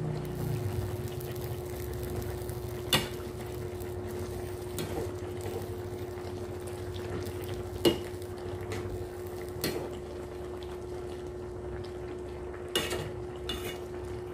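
Metal ladle stirring a coconut-milk fish stew in a frying pan, clinking sharply against the pan about five times, over a steady hum.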